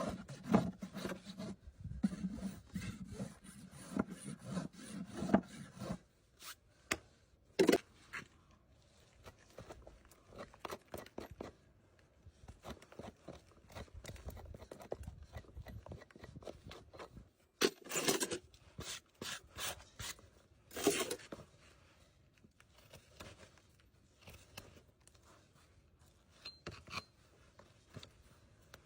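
Rasping and scraping on a horse's hoof during a trim. Rhythmic strokes come at about two a second for the first six seconds. After that come quieter, scattered scrapes and clicks, with two louder scrapes about two-thirds of the way through.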